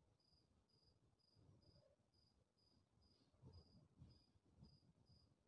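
Near silence: a faint cricket chirping steadily about twice a second, with a few soft knocks in the second half from a brass chakli press being handled.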